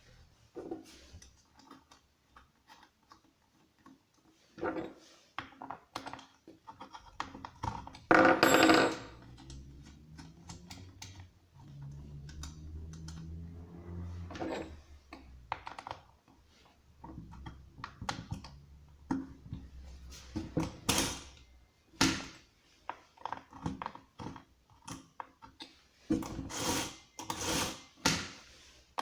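Irregular clicks, knocks and clatter of hard plastic and metal chainsaw parts and packaging being handled, with a louder rattle about eight seconds in.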